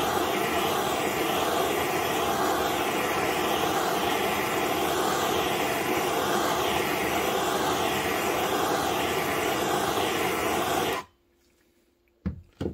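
Handheld gas torch flame running with a steady hiss, heating the hub of a snowmobile bogie wheel to free a tight bearing. It cuts off abruptly about eleven seconds in, followed by two light knocks.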